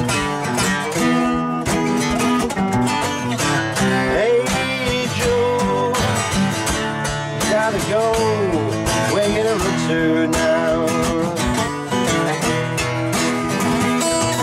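Two acoustic guitars strummed together in a steady rhythm, with a man singing over them in a wavering voice.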